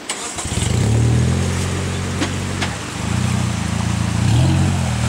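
Off-road vehicle's engine running at low revs under load, picking up about half a second in, easing briefly midway and pulling again. Two sharp knocks come in the middle.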